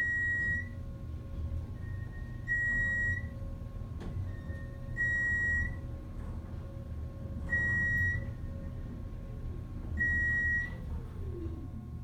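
Elevator car's floor-passing beep: a high electronic beep sounds once per floor, five times about two and a half seconds apart, over the steady rumble of the geared traction elevator travelling up. Near the end the drive's whine falls in pitch as the car slows to a stop.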